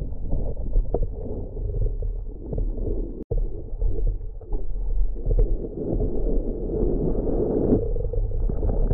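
Wind buffeting and water rushing past a planing windsurf board, picked up by a boom-mounted action camera as a dull, steady rumble. It cuts out very briefly a little over three seconds in.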